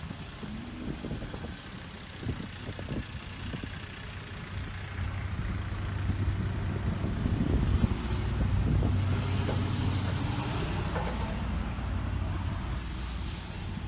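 Cat 316 excavator's diesel engine running, getting louder about five seconds in, with scattered knocks.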